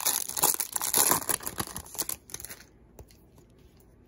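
Plastic wrapper of a trading-card pack being torn open and crinkled in the hands, a dense crackle for about two and a half seconds. Then it goes quiet, with a few light ticks as the cards are handled.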